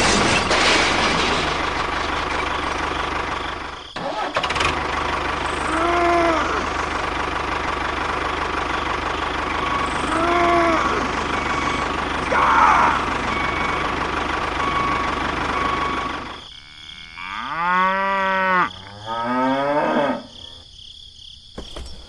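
A tractor engine runs steadily, then stops near the end and gives way to a cow mooing twice, each moo a long call that rises and then falls.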